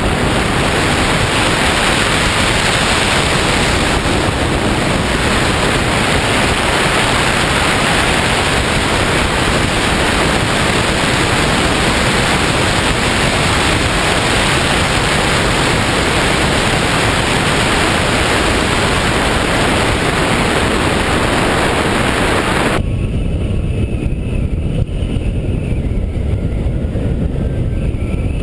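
Wind rushing over the microphone of a camera on a hang glider in flight, a steady loud rush. About 23 seconds in it changes abruptly to a duller, uneven rumble with faint wavering tones.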